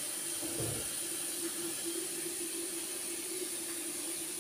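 Cold water running steadily from a kitchen mixer tap into a plastic basin in the sink.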